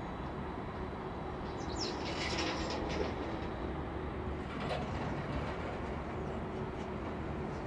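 Distant jet engines of a taxiing Boeing 747-400 freighter at low thrust, a steady rumble with a faint whine. A brief brighter hiss rises over it about two seconds in.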